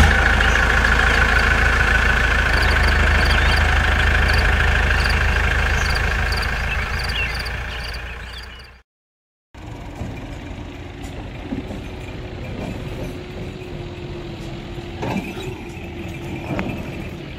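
A loud engine-like rumble from the logo intro, which cuts off dead after about eight and a half seconds. Then a diesel tractor engine runs steadily at idle, with a couple of clanks near the end.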